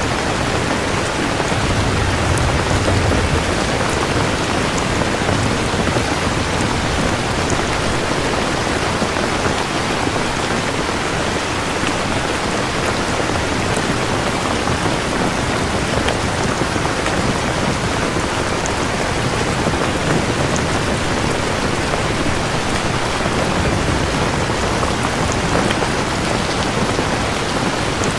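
Steady heavy rain falling, an even hiss of drops throughout. A low rumble of distant thunder swells briefly about two to three seconds in.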